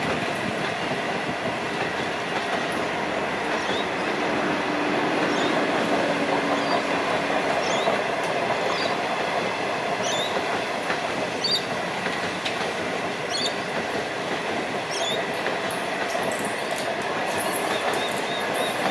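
Indian Pacific passenger train's stainless-steel carriages rolling steadily past on the track, a continuous rumble of wheels on rail. Brief high rising squeaks come every second or two through much of it.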